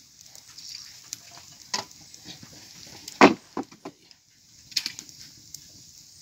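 Pieces of damp firewood being knocked together and laid crosswise onto a small campfire: several sharp wooden clacks, the loudest about three seconds in, over the faint crackle and sizzle of wet wood burning.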